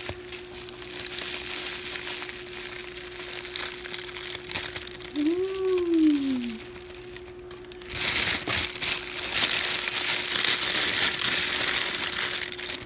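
Bubble wrap and a thin plastic bag crinkling as they are pulled off a camera lens, much louder in the last few seconds.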